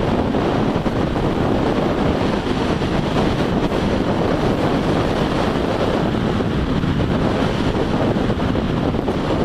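Steady wind buffeting on the microphone of a moving motorcycle, with the bike's running and road noise underneath.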